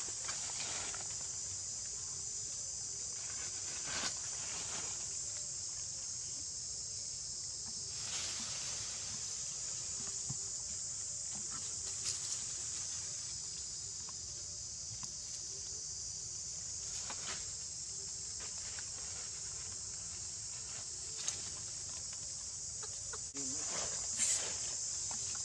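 Steady, high-pitched drone of insects such as crickets, with a few short rustles and clicks and a louder brief sound near the end.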